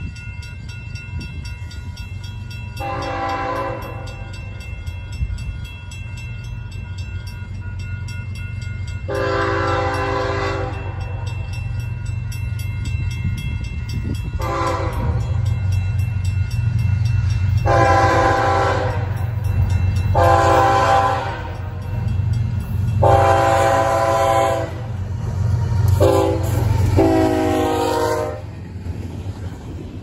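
Approaching diesel freight locomotive's air horn sounding a series of multi-note blasts, long ones with short ones between, in a grade-crossing pattern, over the steady low rumble of the engines. The horn and rumble grow louder as the train nears.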